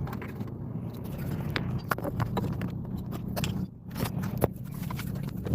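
Steady low hum of a vehicle with irregular sharp ticks and taps scattered over it, a few every second.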